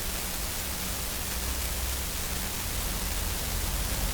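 BMW 428i's 2.0-litre turbo four-cylinder engine idling: a steady low hum under an even hiss. It is the idle that was felt as rough and shaking, with the engine running lean.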